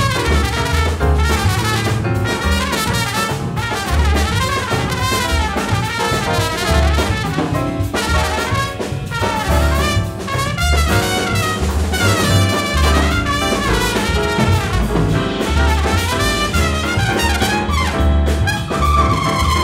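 Jazz trumpet solo over a rhythm section of double bass and drums, in a blues played in 5/4. The trumpet plays fast, sweeping runs up and down, settling onto a held note near the end.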